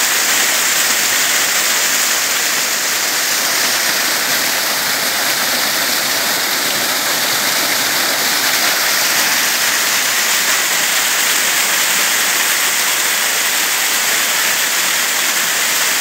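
Small forest waterfall: a steady rush of water cascading and splashing over rocks.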